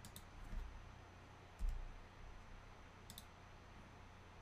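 Faint computer mouse clicks, three in all about a second and a half apart, with a low thump about one and a half seconds in that is the loudest sound.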